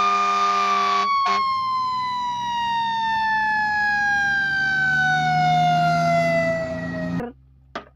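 Fire truck siren: a steady buzzy wail for about a second, then one long tone sliding slowly down in pitch, as a mechanical siren winds down, cutting off sharply near the end.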